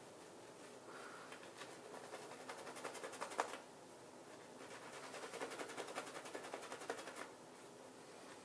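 Shaving brush swirling lather over a bearded cheek and neck: rapid crackling and squishing in two bouts of about two and a half seconds each, with a short pause between.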